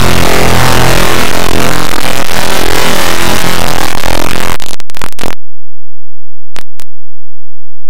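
Harsh, extremely loud, distorted noise with a steady low hum under it. It breaks up and cuts off abruptly about five seconds in, followed by two short clicks.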